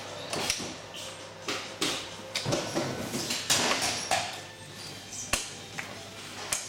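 Office swivel chair being tried out by hand: irregular clicks and knocks from its seat mechanism and adjustment levers as they are pulled and the seat is rocked.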